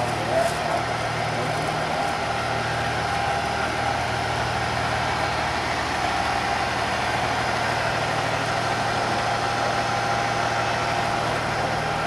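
Fire engine's diesel engine idling steadily: an even low hum with a faint steady whine above it.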